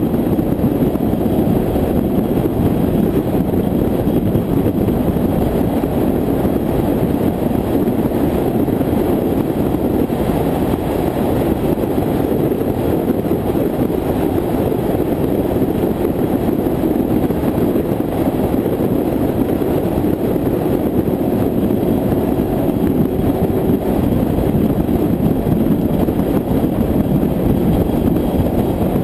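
Steady drone of a car cruising at highway speed: engine, tyre and wind noise blended into an even, muffled rumble, with no changes or sudden sounds.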